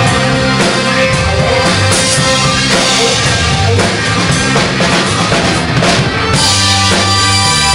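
Live rock band playing without vocals, with drum kit, electric guitar, bass guitar and keyboard.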